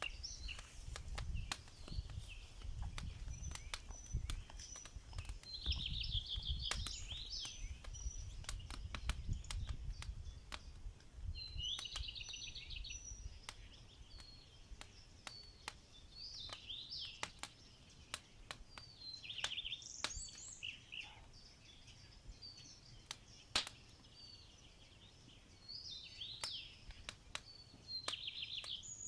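Small birds singing outdoors, with repeated trills and chirps throughout. Scattered sharp clicks come through, and a low rumble fills roughly the first half.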